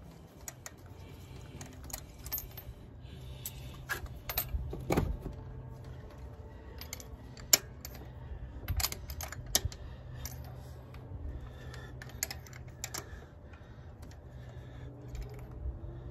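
Irregular metallic clicks and clinks of hand tools on the spark plugs in a car's engine bay, with a faint low hum underneath.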